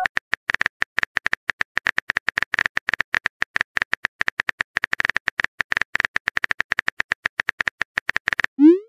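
Smartphone keyboard typing clicks: a rapid, uneven run of short taps, about seven a second, as a text message is typed. Near the end the clicks stop and a short rising swoosh sounds as the message is sent.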